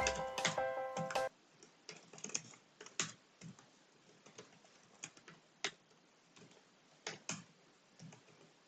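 Background fantasy music stops abruptly about a second in, followed by scattered, sparse computer keyboard and mouse clicks as the music is being adjusted on the computer.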